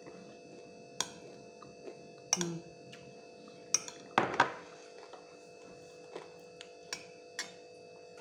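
Scattered sharp clicks and crunches, about half a dozen, from eating crispy fried chicken skin by hand off a plate, the loudest a short cluster a little past the middle, over a steady faint hum.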